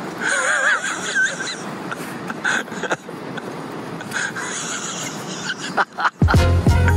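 Steady outdoor rushing noise with a short wavering cry about a second in and a couple of briefer ones later. Music with a deep bass beat comes in near the end.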